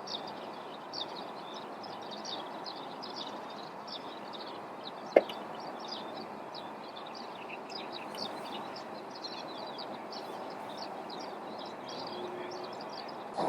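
Small birds chirping continuously in a morning chorus over a steady outdoor background hiss, with one sharp click about five seconds in.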